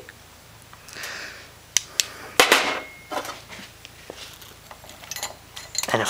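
Handling noise: a short rustle about a second in, then several light clicks and knocks, the sharpest about two and two and a half seconds in, and a few fainter ticks after.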